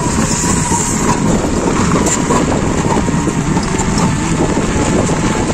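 Steady rumble of an open-sided vehicle driving along an unpaved dirt road, heard from on board.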